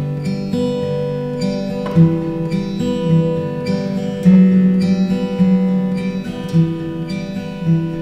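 Acoustic guitar music: strummed and picked chords ringing out, with strong fresh strums about two seconds in and again a little after four seconds.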